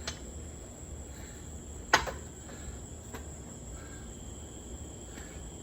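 A single sharp knock about two seconds in, the loudest sound, with fainter clicks just before and after it, over a steady high-pitched background tone.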